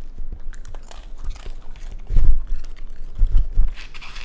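A raccoon crunching and chewing Goldfish crackers: a run of small crisp crunches, with a few heavier dull thumps about two and three and a half seconds in.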